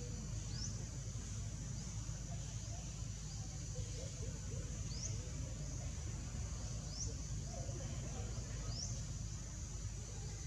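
Outdoor forest ambience: a steady high insect drone over a low rumble, with short rising bird chirps every second or two.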